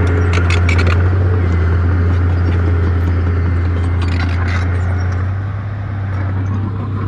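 Bulldozer's diesel engine running steadily with a deep drone, with sharp clanks in the first second and again about four seconds in.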